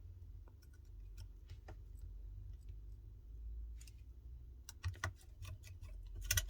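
Faint, scattered small metal clicks and ticks of a precision screwdriver and tiny screws being refitted into an iPhone 14 Pro's internals, with a quicker run of clicks about five seconds in.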